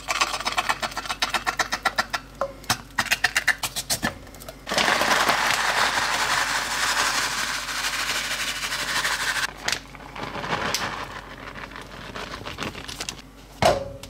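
Fork clicking and scraping against a can and a skillet as refried beans are spread onto a tortilla, many quick ticks, for about four seconds. Then a sudden steady rustling hiss lasting about five seconds as crumbles are shaken out of a plastic bag, followed by quieter handling noise.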